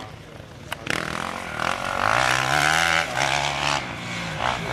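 Enduro dirt bike engine revving as the rider accelerates along a dirt track, its pitch rising and falling several times. It comes in loudly about a second in after a quieter start.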